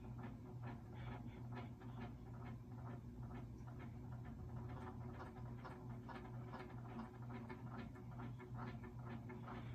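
CEC Casablanca Mercury copy ceiling fan running, with a steady low motor hum under uneven ticking and clicking, several a second, the sound of its bad bearings.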